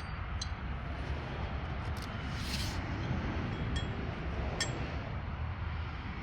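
Light metallic clinks of tools over a steady low background rumble, with a brief hiss about two and a half seconds in.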